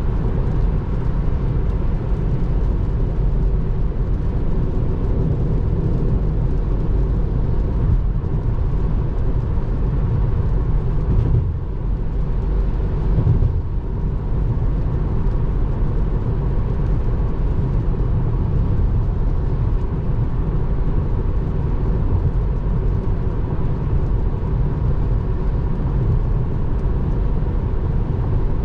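Steady road and tyre noise heard from inside a Tesla Model 3's cabin while it drives at highway speed on a wet road.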